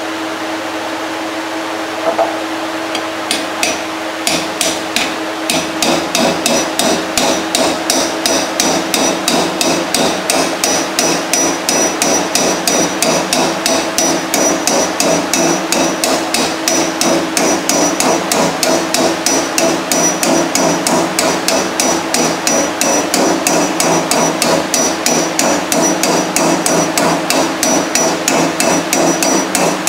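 Rapid, even hammer taps on steel, about four a second, each with a bright metallic ring. They drive a new bearing down into the cast-iron bearing housing of a large commercial washer. The tapping starts two to three seconds in, over a steady hum.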